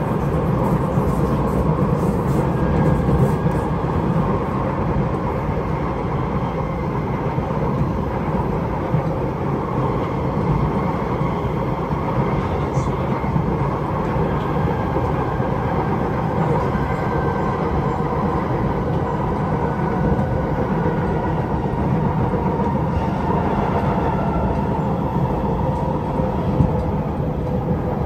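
Interior of a Kawasaki–Nippon Sharyo C751B metro train running at speed: a steady rumble of steel wheels on rail, with a faint whine from its Fuji Electric IGBT-VVVF traction drive.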